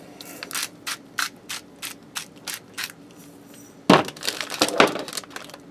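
Hand-twisted salt grinder cracking salt over the food in short crunchy clicks, about three a second, for some three seconds. About four seconds in come a few louder knocks and clatters.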